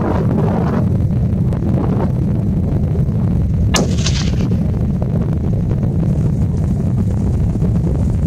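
A single hunting rifle shot about four seconds in, a sharp crack with a short tail, fired at a mule deer buck. Heavy steady wind rumble on the microphone runs underneath.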